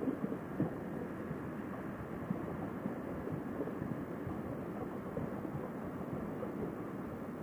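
Wind rushing over a motorcycle rider's Sena SMH10 helmet headset microphone while riding, a steady muffled rush that stays even throughout.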